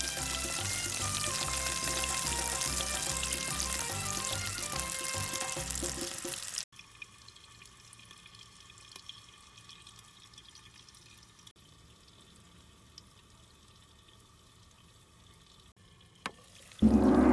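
Food sizzling in a frying pan under background music with a bass line. About six and a half seconds in, both cut off abruptly to a faint hush, and near the end a loud struck tone rings out.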